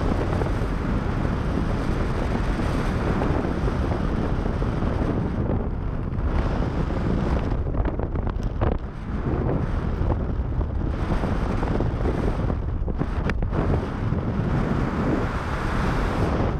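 Rushing air buffeting a wrist-mounted camera's microphone during a tandem parachute descent on final approach, a dense gusty roar of wind noise, with a couple of brief clicks about halfway through and again later.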